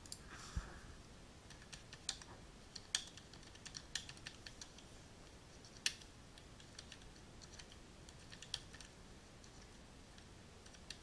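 Computer keyboard being typed on in faint, irregular keystrokes, with one louder click about six seconds in.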